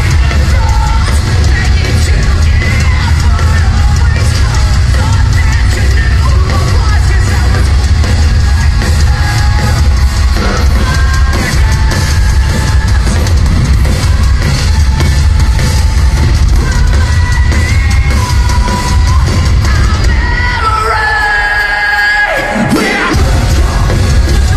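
A rock band playing live through a large PA, heard from inside the crowd: heavy distorted guitars, bass and drums with shouted and sung lead vocals. About two seconds before the end the heavy low end drops away and a sliding tone stands out, then the full band comes back in.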